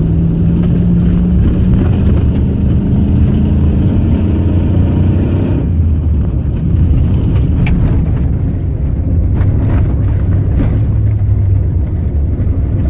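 Off-road pre-runner race truck driving fast over a dirt course, heard from inside the cab. The engine runs hard under load with road and wind noise. Its note creeps up for about the first half, then changes abruptly. A few sharp knocks and rattles come from the rough ground in the second half.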